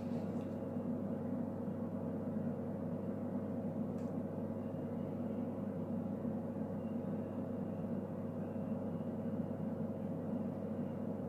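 Steady low hum of a small electric motor running, with a faint click about four seconds in.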